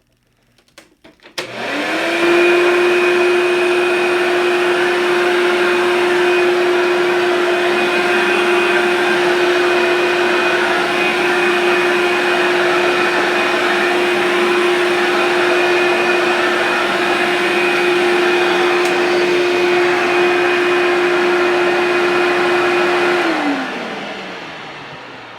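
Hoover Power Drive Turbo Power upright vacuum cleaner switched on after a few clicks, its motor spinning up quickly to a loud, steady whine. It runs evenly for about twenty seconds, then is switched off near the end and winds down with a falling pitch.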